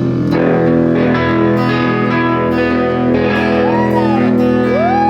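A live band playing the instrumental close of a song, with guitars ringing out sustained chords. A little over three and a half seconds in, a high note slides up and back down, and near the end another slides up and holds.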